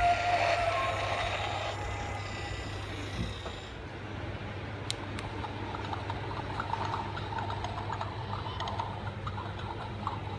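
Store ambience: a steady low hum with faint scattered clicks and rattles, after a fading tone in the first second.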